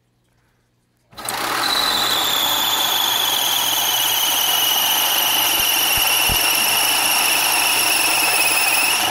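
Belt-driven 3D-printed two-stage regenerative supercharger spinning up about a second in, with a loud rushing noise and a high squeal that slowly falls in pitch, then cutting off suddenly near the end. The squeal is the impeller rubbing on its housing: belt tension squashes the TPU bearing seals and deflects the housing into the impeller.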